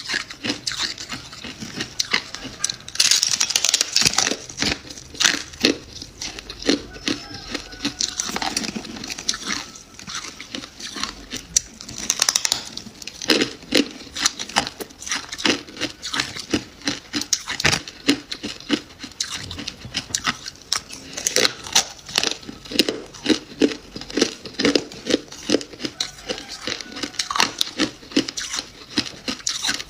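Freezer frost being bitten and chewed: a dense, irregular run of crisp crunches and crackles, with louder flurries of bites throughout.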